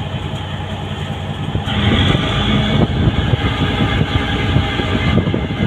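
Small boat's engine running under way, a steady rumble that grows louder and rougher about two seconds in.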